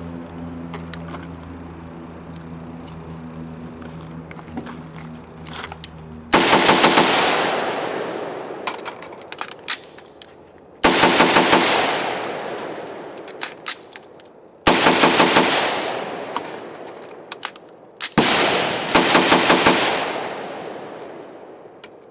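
CMMG AR-15 pistol with an Osprey Defense gas-piston system firing four fast strings of about five or six shots each, the first about six seconds in, each string followed by a long echoing decay. Between strings, short metallic clicks of magazine changes.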